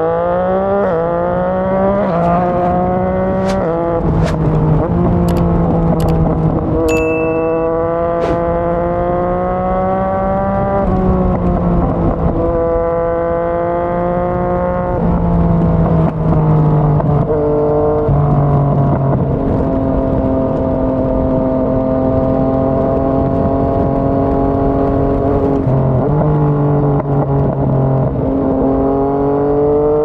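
Yamaha MT-09's three-cylinder engine through a Yoshimura R55 slip-on exhaust, heard from the bike while riding. The note climbs under acceleration and drops back at each gear change, several times over, with a few sharp cracks a few seconds in.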